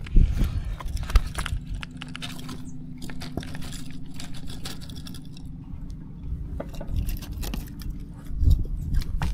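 Fishing reel winding in a cast lure: irregular small clicks and rattles over a low steady rumble, with a faint steady hum through the middle.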